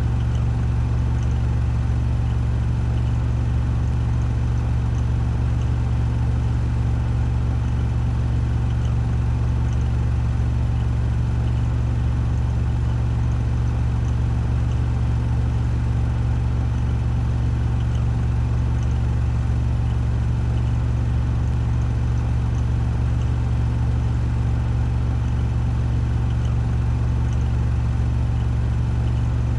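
Washing machine drum spinning at 1400 rpm in the spin cycle: a steady deep hum with a whir over it.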